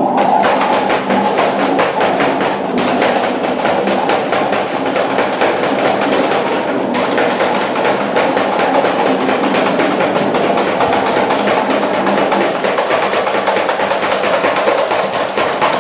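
Loud, dense electronic noise music: a continuous harsh wash with a rapid crackling, rattling texture, heaviest in the low-mid range.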